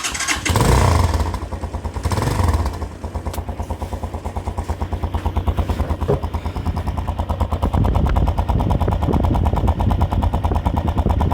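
Italika DM200 single-cylinder motorcycle engine starting, revving up twice, then idling with a fast, even exhaust pulse. The muffler has a small hole punched in it, which gives the exhaust a slightly deeper, raspier note, "más ronquito".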